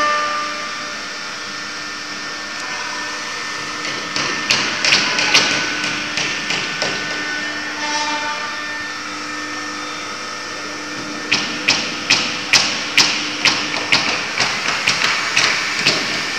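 CNC wood router working, its spindle running steadily. Runs of sharp ticks come at about two to three a second, first around four seconds in and again, louder, from about eleven seconds on.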